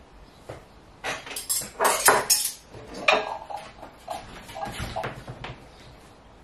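Crockery and cutlery clinking and clattering as a plate and glass are dried and handled, busiest in the second and third seconds, then a few lighter clinks with a short ring.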